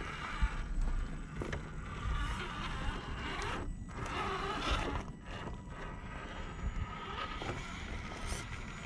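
Electric motor and gearbox of an HPI Venture RC rock crawler whining as it crawls over rock, cutting out briefly a few times as the throttle eases off. A low rumble sits underneath.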